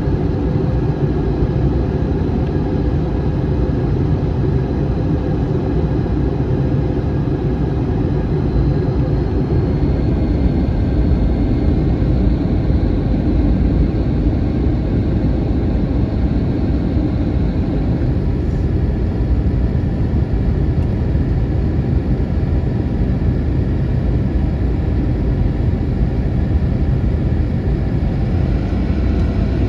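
Steady cabin noise aboard an Airbus A321 airliner: a continuous low roar of engines and airflow heard from inside the cabin.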